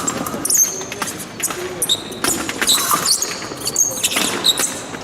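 Fencers' shoes squeaking and thudding on the piste during quick footwork, with short high squeaks scattered among sharp knocks.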